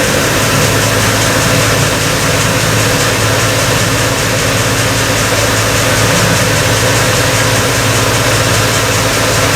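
Combine harvester running steadily under load, its diesel engine humming low beneath the dense hiss of the machinery.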